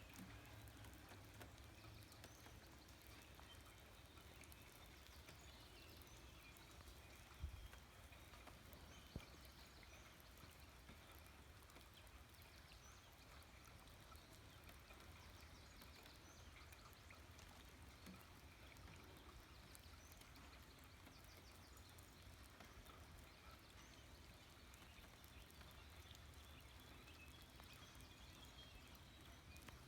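Faint nature ambience: a soft, even rush of a distant stream with faint high chirps now and then, and two brief knocks about seven and nine seconds in.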